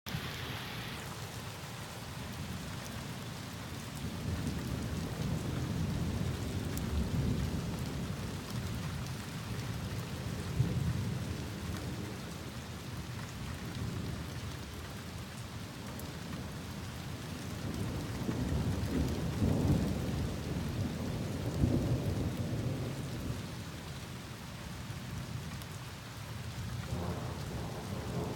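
Thunderstorm: heavy rain falling steadily, with thunder rumbling low several times, swelling and fading away, loudest about two-thirds of the way through.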